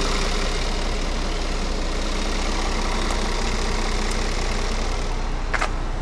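Semi-truck diesel engine idling steadily, with one brief sharp sound near the end.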